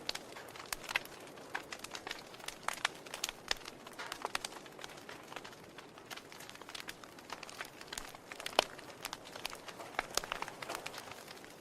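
Wood fire crackling: a soft hiss with irregular snaps and pops. The loudest pop comes about two-thirds of the way through.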